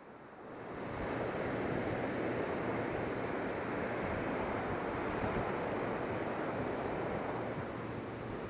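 Ocean surf washing up the beach, a steady rushing of breaking whitewater that swells over about the first second and then holds.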